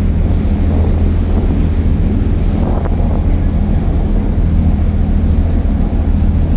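A boat's engine running at steady cruising speed, a low, constant hum, under wind buffeting the microphone and the rush of water churned up in the wake.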